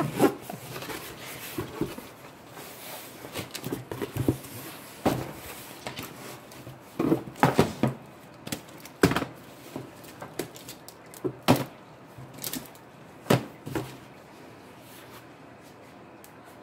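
Clear plastic storage cases being lifted out of a cardboard shipping box and stacked on a wooden table: a scattering of irregular knocks and clacks of plastic against wood and cardboard.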